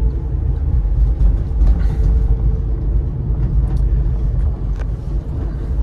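Cabin noise inside a Chevrolet Tornado cargo van on the move: a loud, steady low rumble of engine and road, with a faint steady hum and a few light knocks and rattles.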